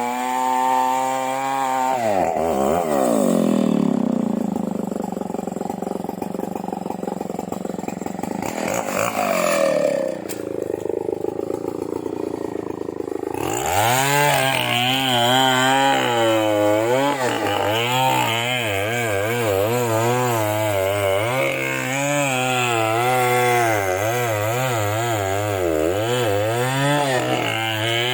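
Stihl two-stroke chainsaw cutting into a large merbau hardwood tree. The engine runs at steady high revs, then its pitch drops about two seconds in. From about halfway on, the revs rise and fall again and again as the bar works through the wood.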